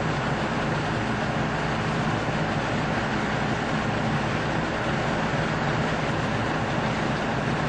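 Farm tractor engine running steadily: a constant, unchanging mechanical drone.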